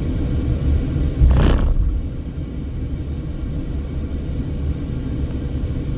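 A car driving on the highway, heard from inside the cabin: a steady low road and engine rumble, with one brief louder noise about a second and a half in.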